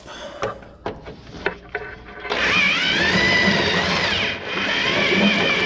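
Cordless drill with a 1-inch bit boring into a pickup's steel frame. A few clicks and knocks of handling come first, then about two seconds in the drill starts and runs steadily with a wavering whine, easing off briefly near the four-second mark before cutting on again.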